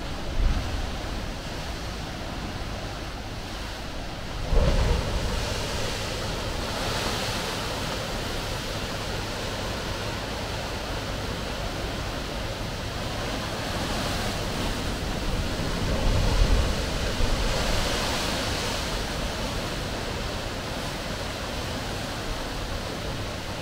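Sea waves washing in against the shore, a steady rush of surf that swells up twice, with wind buffeting the microphone in a few low gusts.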